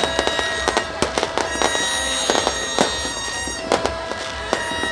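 Fireworks going off in quick, irregular bangs and crackles, many overlapping, with steady high held tones sounding underneath.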